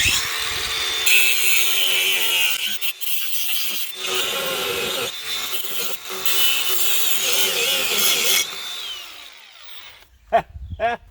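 Angle grinder with a cutting wheel cutting into a bracket, running under load for about eight seconds, then released and winding down.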